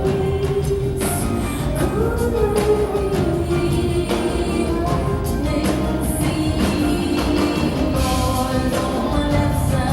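Live band music with a woman singing a held, wavering melody over drums and a heavy bass line.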